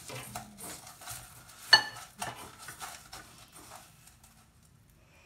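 Soft scraping and rustling of cauliflower florets being dipped in batter and rolled in cornflake crumbs, with a single sharp, ringing clink of dishware a little under two seconds in.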